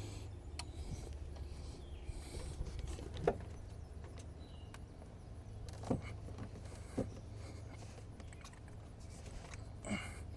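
Hand work on an engine as a hose is pushed on and clamped: a few light, separate clicks and knocks of metal and tools over a low steady hum.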